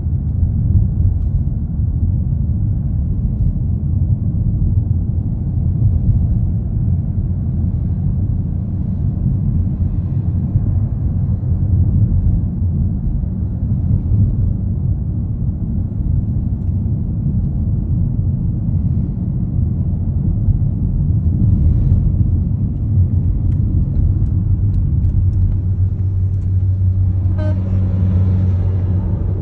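Steady low rumble inside a moving car's cabin, engine and tyres on a rough, milled road surface. About two seconds before the end a steadier low hum with a rapid clatter of ticks comes in as the car passes a working road-milling machine.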